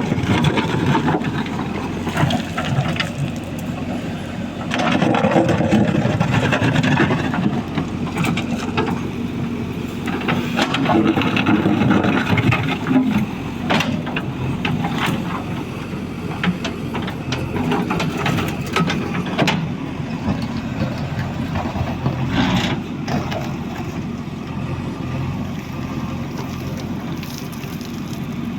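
An engine running steadily, with scattered knocks and clatter over it.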